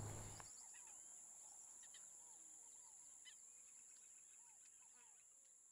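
Faint woodland ambience: a steady high insect trill under small repeated bird chirps, fading out near the end.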